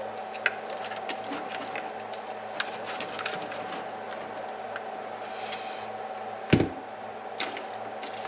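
Small clicks and light handling noises of hands working wires and plastic connectors on an RC truck, with one louder knock about six and a half seconds in, over a steady low hum.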